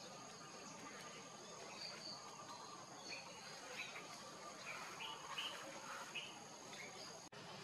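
Faint outdoor ambience: a steady high insect drone, with a scattering of short high chirps from about two to six and a half seconds in.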